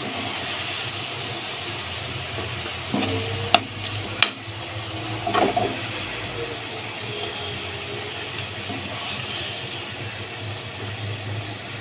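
Sliced onions frying in hot oil in a metal kadai, a steady sizzle, with a metal spatula stirring and scraping through them. Two sharp clicks of the spatula against the pan come at about three and a half and four seconds in.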